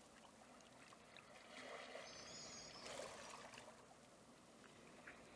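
Near silence: faint background hiss with a few soft swells.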